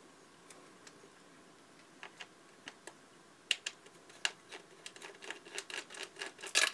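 Light clicks and ticks of a precision screwdriver working tiny screws out of a compact camera's plastic body, a few scattered at first, then coming faster from about halfway, with the loudest cluster near the end.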